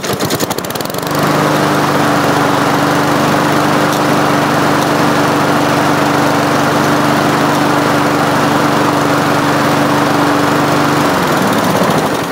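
Honda HRX217 lawnmower's single-cylinder engine pull-started: a second of cranking, then it catches and runs steadily before being shut off about eleven seconds in and winding down. A slight noise from the recoil starter is still there because its rope is a little too long, so it does not retract fully and drags.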